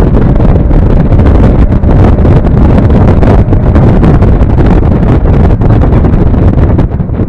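Mazda MX-5 on a race track under hard acceleration, its engine noise buried in heavy wind buffeting on the microphone. Near the end the noise drops sharply and the highs fall away.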